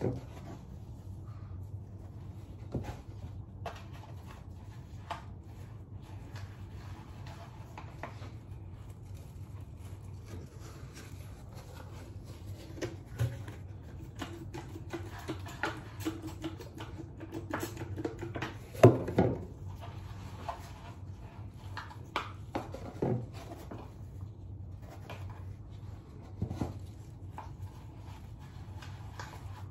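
Scattered knocks, clicks and rustles of hands handling a mannequin head and its hair, over a steady low hum; the loudest knock comes about two-thirds of the way through.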